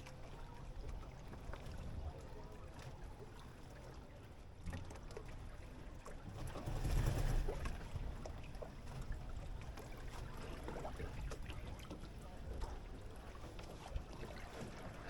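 Water rushing and splashing along the hull of a Buccaneer 18 sailing dinghy under way, with wind rumbling on the microphone. The noise swells louder for about a second around seven seconds in.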